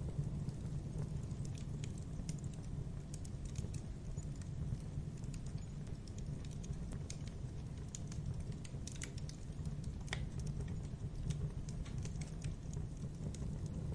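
Wood logs burning in a fireplace: irregular sharp crackles and pops over a steady low rumble of the fire.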